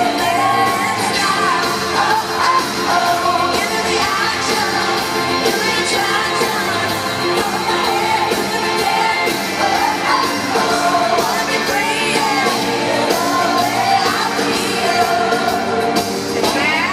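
Live country-pop song played loud by a full band with a steady beat, a woman singing the lead vocal into a microphone over it, recorded from within an arena audience.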